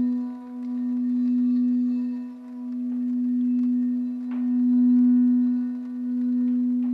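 Frosted quartz crystal singing bowl, tuned for the crown chakra, sung by circling a mallet around its rim. It gives one steady low tone with faint higher overtones that swells and dips about every two seconds.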